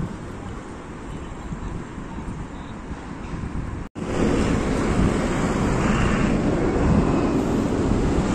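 Wind buffeting the microphone over a steady rumble of city traffic. There is a brief gap about four seconds in, after which the noise is louder.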